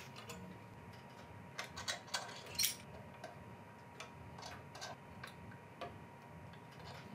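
Faint, scattered metallic clicks and ticks of a vise grip and Allen wrench working a stainless steel turnbuckle on a cable railing tensioner, with the loudest click a little under three seconds in.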